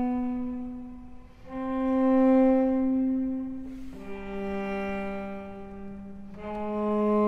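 Cello playing slow, long bowed notes, each swelling and fading, with a new note starting about every two and a half seconds.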